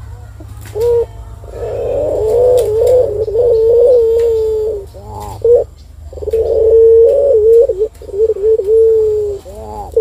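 Collared dove (puter) cooing: a short note about a second in, then two long, drawn-out wavering coos separated by a few short clipped notes.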